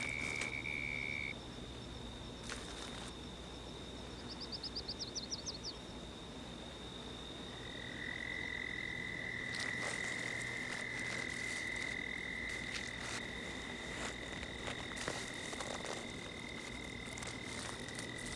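Background chorus of trilling animals, with long steady high-pitched trills held on one note. One trill stops about a second in, another keeps going, and a third starts around eight seconds in. A quick run of about ten chirps comes between four and six seconds, and faint scattered clicks follow in the second half.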